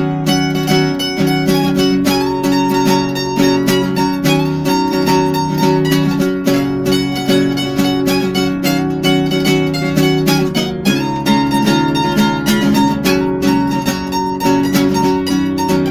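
A mandolin picking a melody in quick plucked notes over an acoustic guitar accompaniment.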